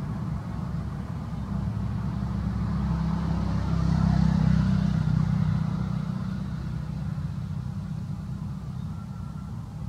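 Low engine rumble of a passing motor vehicle, swelling to its loudest about four seconds in and slowly fading away.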